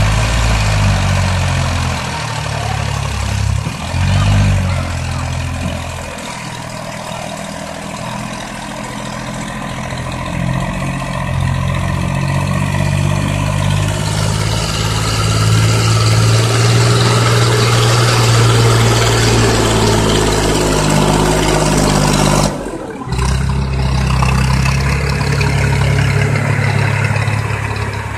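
Massey Ferguson 240 tractor's three-cylinder diesel engine running under heavy load while pulling a trolley piled with sugarcane, its note rising and falling. The sound drops out briefly about 22 seconds in.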